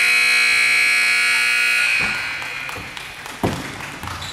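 Gym scoreboard horn sounding one long, steady blast of about two seconds as the game clock reaches zero, ending the period. It then rings away in the hall's echo, and a single thud follows near the end.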